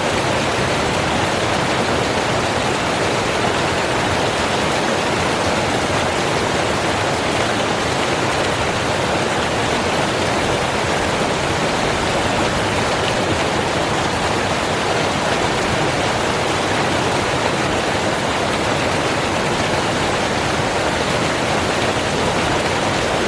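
Water pouring steadily down a small waterfall of several cascades, an even rush that does not change.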